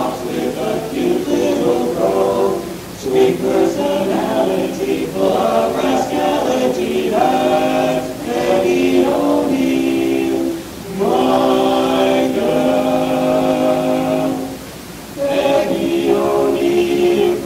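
Male barbershop quartet singing a cappella in four-part close harmony, with brief breaks between phrases about two-thirds of the way through and again later.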